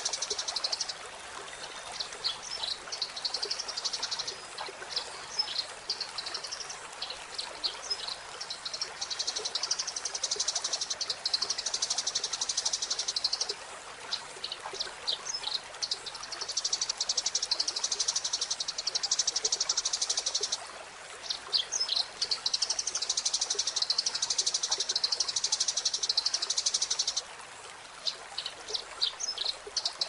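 Eurasian tree sparrow chirping, with long runs of fast, dense chatter lasting several seconds, broken by shorter stretches of separate high chirps.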